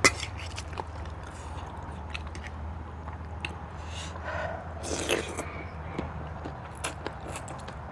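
Close-miked chewing of papaya salad, with wet smacks and short clicks scattered through it and a sharp click at the very start, over a steady low hum.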